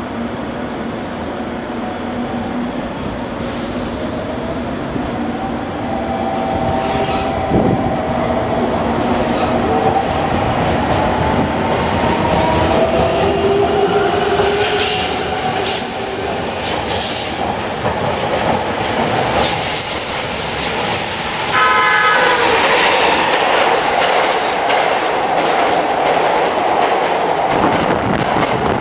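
Electric trains passing through a station: a local electric train's motor whine rises and holds, with high-pitched wheel squeal, then a 12-car 787 series limited express sounds a short horn blast about two thirds of the way in and passes at speed, its wheels clattering over the rail joints.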